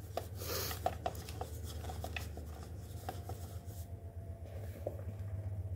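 Hands handling and pressing pie-crust dough in a metal mixing bowl: a scatter of light clicks and taps with a brief rustle about half a second in, over a steady low hum.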